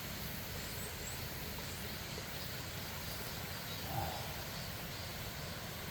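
Steady rushing of a mountain stream's running water, with a brief faint sound about four seconds in.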